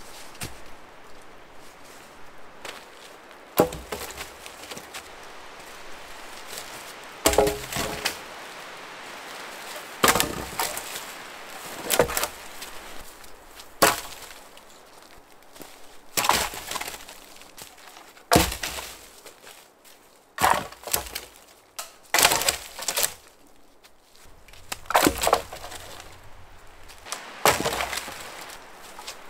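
Dry dead wood cracking and snapping as branches are broken for firewood: about a dozen sharp snaps, irregularly spaced a couple of seconds apart, some coming as quick double cracks.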